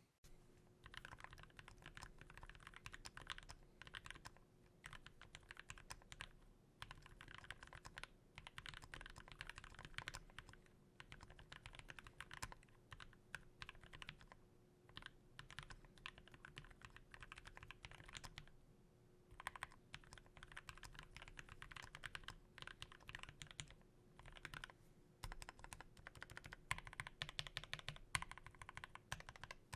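Typing on a 40% custom mechanical keyboard with a brass plate, Gateron Ink Black linear switches lubed with Krytox 205g0-style 3204 lube and fitted with TX films, and GMK keycaps: a continuous run of key presses and returns, broken by a few brief pauses.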